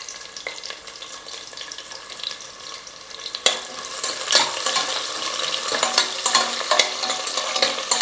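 Sliced onions sizzling in hot ghee and groundnut oil with whole spices in a pressure cooker. From about three and a half seconds in, a metal spoon stirs them, clicking and scraping against the side of the cooker.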